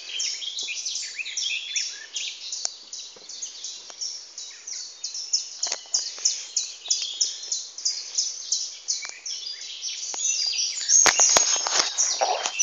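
Birds chirping outdoors, high chirps repeating several times a second. Two sharp clicks sound near the end.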